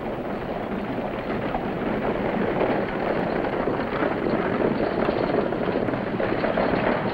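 Horse-drawn stagecoach approaching: the team's hooves and the coach's wheels make a steady clatter that grows louder.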